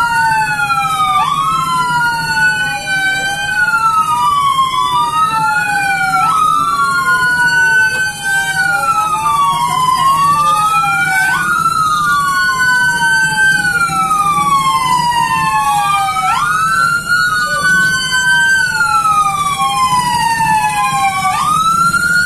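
Siren wailing, its pitch sweeping slowly up and down in long repeating cycles of about five seconds, over a steady low hum.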